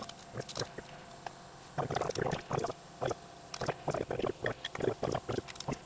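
Large ratchet wrench turning a four-jaw chuck's jaw screw: quiet at first, then from about two seconds in, bursts of rapid metallic clicks as the handle is swung back and forth.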